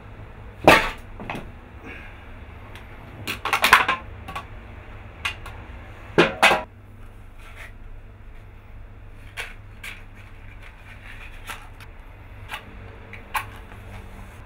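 Scattered knocks, clicks and rustles of a person moving about a small room and handling objects, the loudest bunched a little before and after the middle. Smaller ticks follow, and near the end a lighter is struck to light a cigarette. A low steady hum runs underneath.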